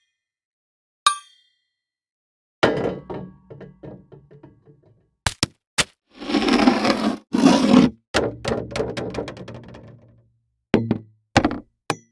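A run of separate library impact sound effects. A short ringing hit comes first. Then there are heavier crashes, each trailing off in a scatter of smaller ticks, with two sharp clicks between them. A few short knocks come near the end.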